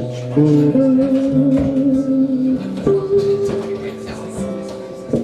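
A guitar playing held chords, changing chord about every second or two.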